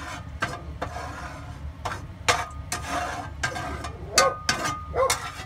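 Cooking utensils clinking and knocking against cookware in a string of sharp clicks, with a dog giving a couple of short barks about four and five seconds in.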